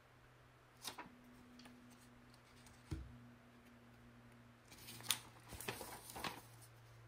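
Paper booklet pages being handled and turned: faint rustles and crinkles about a second in, a soft thump near three seconds, and a quick run of page rustles from about five seconds, over a steady low hum.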